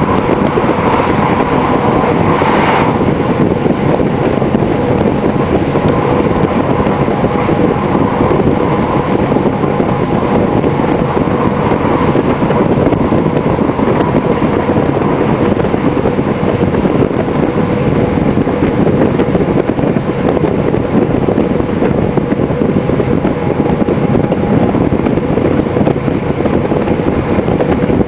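Cab of a DB class 628 diesel railcar running at speed: a steady drone from the diesel driveline over the rush of wheels on rail, with a short louder rush about three seconds in.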